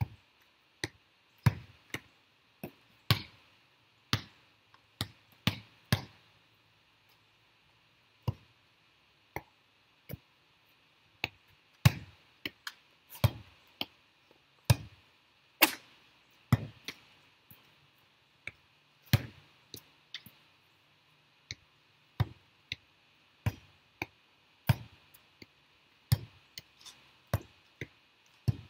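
A volleyball being struck again and again with the hands and forearms, a sharp smack at uneven intervals of about one a second, each with a short low ring from the ball, and a couple of pauses of one or two seconds.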